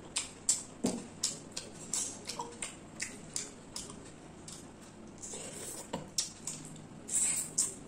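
Close-miked wet eating sounds: lips smacking and mouth clicking while chewing curry-soaked rice and chicken eaten by hand, along with fingers squishing the rice. An irregular run of quick clicks and smacks, busiest near the start and again near the end.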